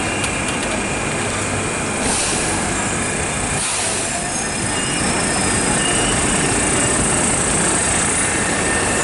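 Fiat Ferroviaria 4900-series tram moving off and running past along street rails: steady rolling noise from wheels on track, with faint high wheel squeal at times.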